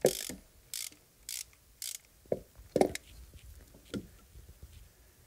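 Socket ratchet clicking in short strokes, about four about half a second apart, then a few light knocks, as a pre-loosened spark plug is unscrewed.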